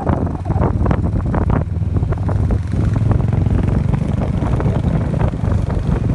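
Wind buffeting the microphone over the steady low rumble of a vehicle travelling along a road.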